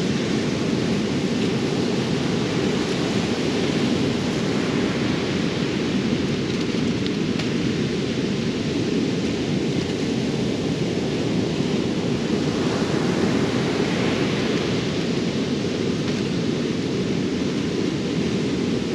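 Steady low rumble of surf breaking on the beach, mixed with wind on the microphone.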